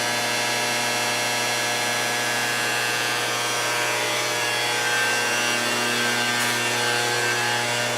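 A shop machine running steadily, a constant hum with a hiss over it and no change in level.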